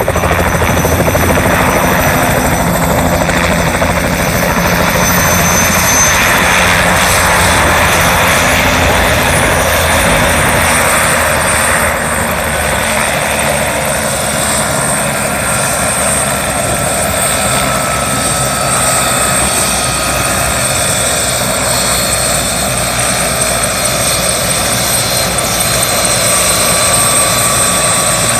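Bell 206B JetRanger helicopter running steadily, a fast low rotor beat under a thin high turbine whine.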